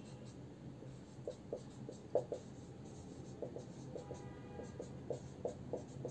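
Marker writing on a whiteboard: a faint series of short, irregular strokes and taps, with a brief squeak about four seconds in.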